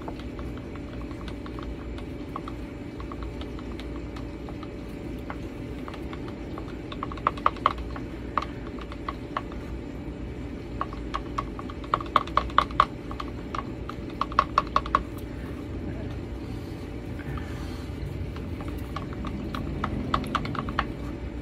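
Wooden stir stick stirring thick acrylic pouring-paint mix in a plastic cup, ticking against the cup's sides in several quick runs of clicks, over a steady low hum.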